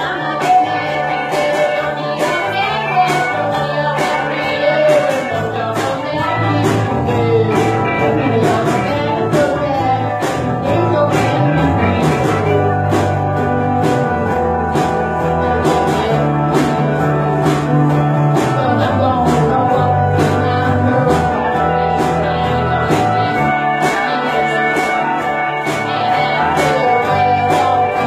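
Live acoustic band playing a song: strummed acoustic guitar and mandolin in a steady beat, with a voice singing over them.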